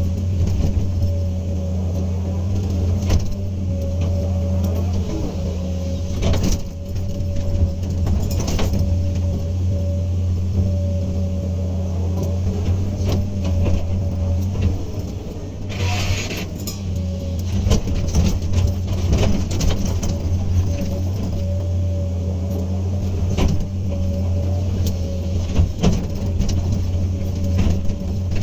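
Hydraulic excavator's diesel engine running steadily under work, with repeated clanks and knocks from the machine working and a short hiss about 16 seconds in.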